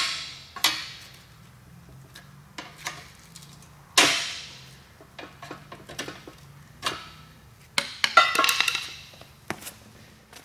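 Metal knocks and clinks as an old Nissan 240SX bushing's metal ring is knocked loose and lifted out. A few separate sharp strikes each ring briefly, the loudest about four seconds in, with a quick run of clinks near the end.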